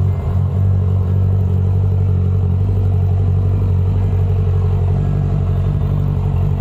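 Motorcycle engine idling steadily through an aftermarket exhaust, with a loud, deep exhaust note.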